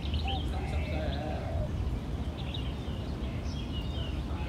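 Birds chirping and calling, with a wavering lower call about a second long near the start, over a steady low rumble.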